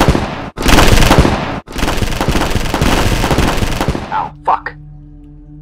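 Sound effect of sustained automatic gunfire, a loud rapid stream of shots broken by two short gaps and stopping about four seconds in. Low steady background music tones follow near the end.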